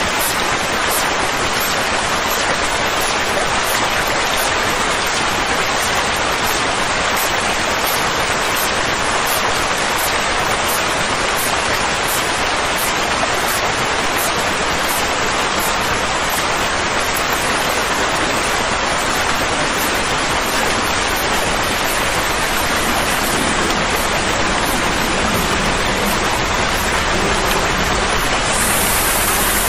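Steady, even rushing hiss like heavy rain, with no rhythm or tune: a soothing noise track for a colicky baby.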